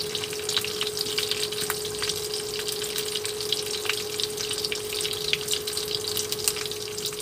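Shallots and aromatics sizzling in hot oil in a frying pan, with many small crackles and pops, over a steady electrical hum from the induction cooktop.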